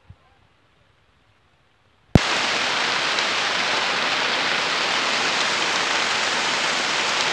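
Heavy cyclone rain: a loud, steady hiss that starts abruptly with a click about two seconds in, after near-quiet.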